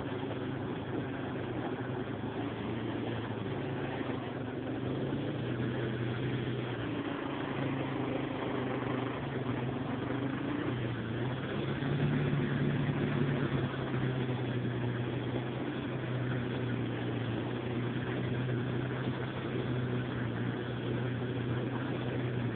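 Yamaha Warrior ATV's single-cylinder four-stroke engine running steadily under way, rising in pitch and loudness for a couple of seconds about twelve seconds in. Heard through a handheld cell phone's microphone.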